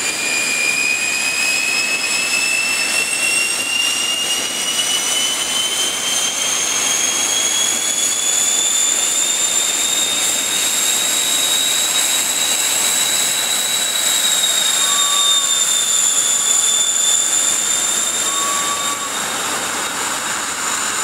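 Gloster Meteor T7's turbojet engines running on the ground: a steady rushing jet noise under a high whine that slowly climbs in pitch for about twelve seconds, then levels off and sags a little.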